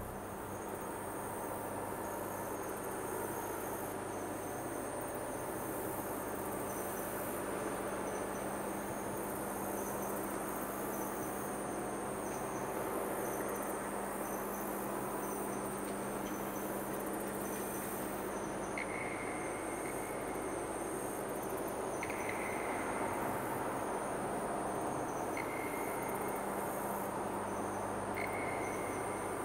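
Steady high chirring of insects over a low steady hum. About two-thirds of the way in, a short tone begins to sound, four times in all, about three seconds apart.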